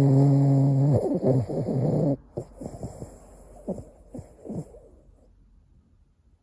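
Boston terrier snoring in its sleep: one long, loud snore held at a steady pitch that breaks into a stuttering rattle and stops about two seconds in, followed by several softer snuffling breaths.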